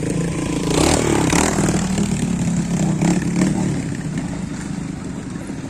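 Trials motorcycle engine revving hard and dropping back as the bike climbs a rocky step, with loud clattering knocks about a second in and again around three seconds.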